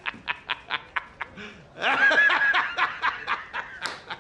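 A man laughing in rapid, rhythmic bursts, about five a second, with a longer drawn-out stretch of laughter about two seconds in.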